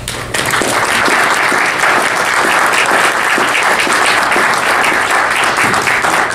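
Audience applause, many people clapping steadily, dying away near the end.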